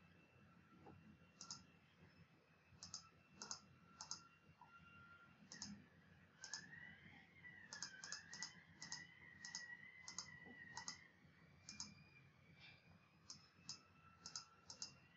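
Faint computer mouse clicks: about twenty short, sharp clicks at uneven spacing, some in quick pairs.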